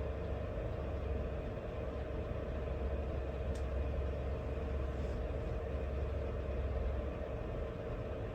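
A steady low rumble with a constant hum above it. The deepest part eases off about seven seconds in, and there is one faint click midway.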